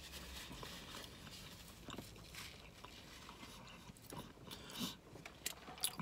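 Quiet car-cabin room tone with a few faint mouth sounds and small clicks. In the last couple of seconds a paper drink cup is picked up and sipped through a straw.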